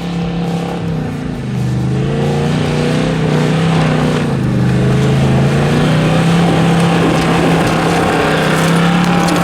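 Four-wheel-drive's engine working hard under load on a steep hill climb, its revs dropping about a second and a half in, then holding and slowly rising again.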